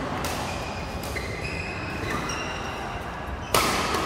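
Badminton rally: shoes squeaking on the rubber court mat and rackets hitting the shuttlecock, with the loudest hit about three and a half seconds in.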